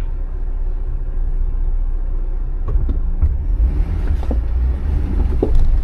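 Jeep engine and drivetrain rumbling at a slow rock-crawling pace in four-wheel-drive low, getting louder about three seconds in, with a few short knocks over the rocks.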